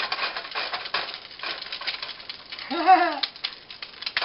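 Hot oil crackling in a nonstick frying pan, a dense run of small pops, with a short voiced sound from the cook about three seconds in.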